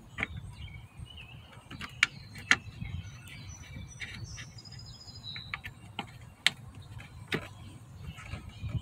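A handful of sharp, irregular clicks and taps from hands working the plastic tail light housing and its screws, with faint high bird chirps in the middle.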